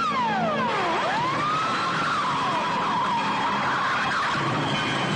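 Police siren on a Soviet militia GAZ-24 Volga wailing, its pitch sweeping down and back up and then wavering, over the noise of a car engine.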